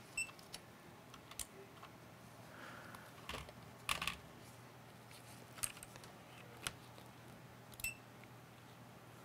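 Scattered light clicks and taps, about eight of them a second or so apart, from handling a laptop logic board, test display and cables on a rubber bench mat, over a faint steady low hum.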